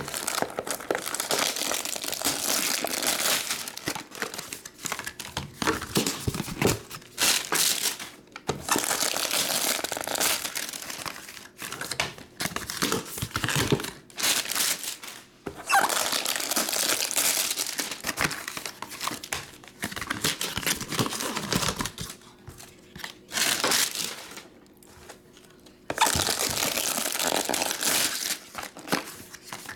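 Cellophane shrink wrap crinkling and tearing as it is stripped off sealed trading-card boxes, together with the rustle of plastic-wrapped packs, in long stretches broken by short pauses.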